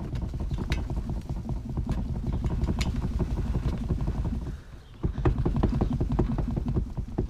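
Packed dirt and dry grass being pulled by hand from inside a car's rear bumper, falling onto concrete in a dense patter of small thuds. There is a short break about four and a half seconds in, then the pouring resumes.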